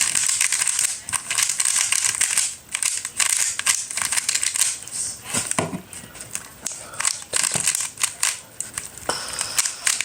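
Crinkling and crackling of packaging being handled, with a dense run of small clicks.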